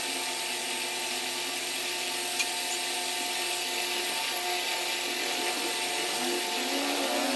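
An electric power tool's motor running steadily, with one sharp click about two seconds in.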